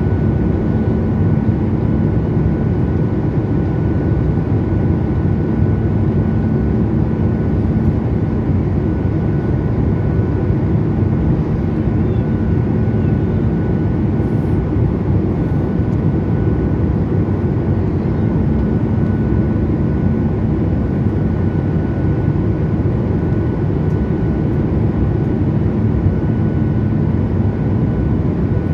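Steady cabin noise of a Boeing 737 airliner in flight, heard at a window seat over the wing: an even, low rush of engines and airflow with a faint steady hum.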